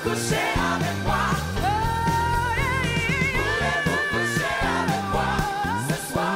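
Live pop-soul song with a woman's lead vocal over a band with drums, bass and keyboards. About two seconds in she slides up into a long high note and holds it with vibrato, with backing singers in the mix.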